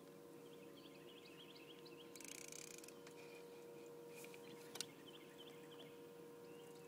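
Near silence: a faint steady hum with faint, quick high chirps repeating a few times a second, a brief hiss a little after two seconds in, and one small click about five seconds in.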